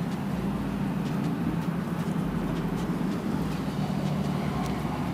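Steady low hum of a motor vehicle, with a few faint clicks.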